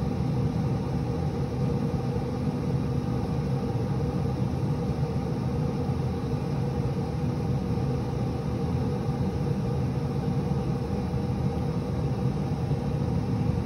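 Steady low hum of a running pellet grill's fan, even and unbroken with a few steady tones in it.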